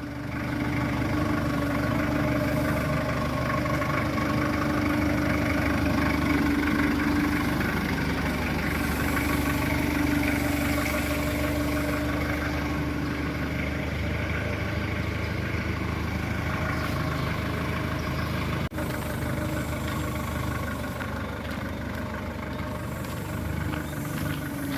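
Heavy diesel engine of earthmoving equipment running steadily at a low, even speed.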